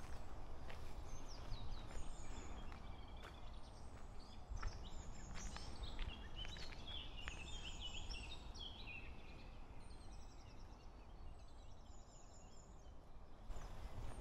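Several small songbirds singing and chirping, with thin high notes sliding downward that repeat every second or two, over a steady low outdoor rumble and soft footsteps on a path.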